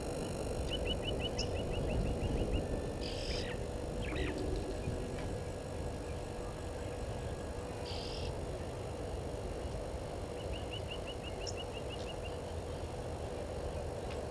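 Wild birds calling over a steady outdoor hiss: a quick run of about a dozen short, high repeated notes near the start and again about ten seconds in, with a few single short calls between.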